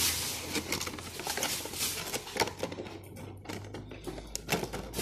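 Clear plastic bag crinkling and rustling as it is handled, a rapid, irregular crackle.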